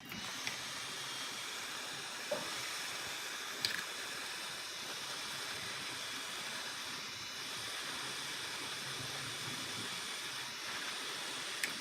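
Steady spraying hiss that starts abruptly and runs unbroken, with a few faint clicks over it.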